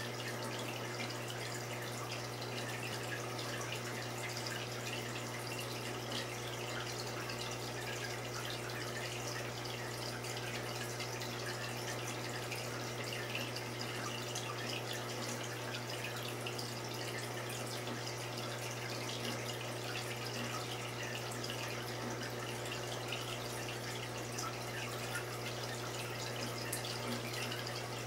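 Saltwater aquarium's running water, a steady trickle and splash with fine crackle over a low, steady hum.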